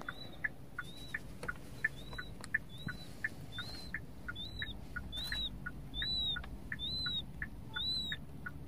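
Button quail chicks, five days old, peeping without pause: a high, arched peep about once a second runs alongside a quicker string of shorter, lower peeps, about three a second.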